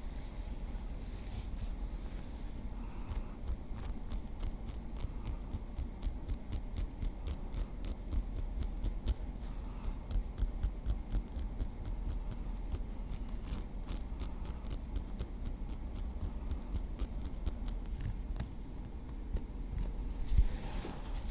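Small wooden stick tapped lightly over and over: a steady run of crisp clicks, several a second, over a faint low hum.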